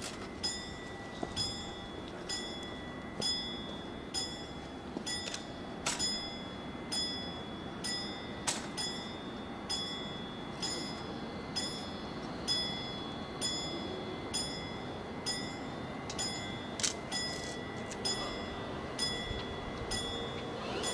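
Level-crossing warning bell ringing in a steady rhythm of single strikes, about one a second.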